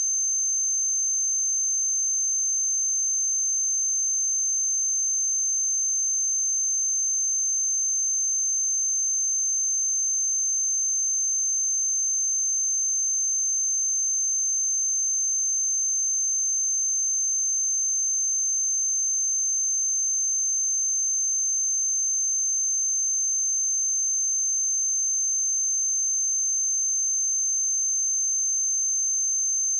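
Steady high-pitched 6272 Hz sine-wave test tone, one pure unchanging pitch at constant loudness.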